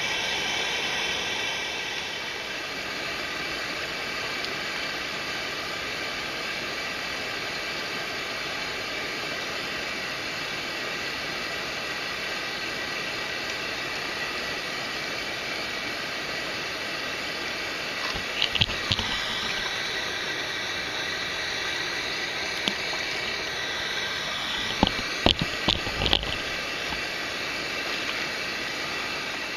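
Steady rush of running stream water, an even hiss. Short sharp knocks come twice in clusters, a little past halfway and again near the end.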